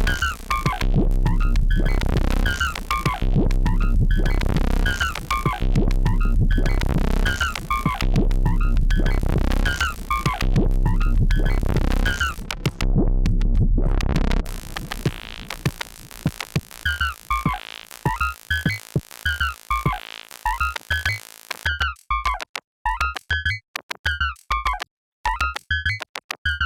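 Electronic drum loop from the Elastic Drums synth-drum app playing a preset: a repeating beat of short, falling synthesized blips over a steady bass. The bass fades out about halfway through, and near the end the beat turns choppy and stuttering.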